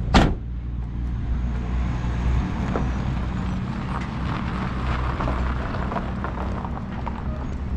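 A car door shuts with one sharp bang just at the start, followed by a steady low vehicle rumble with faint scattered footstep ticks across grass and gravel.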